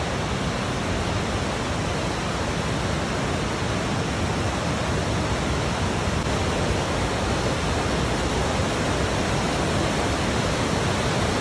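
Waterfall on the Willow River rushing: a steady, even sound of falling water that grows slightly louder toward the end.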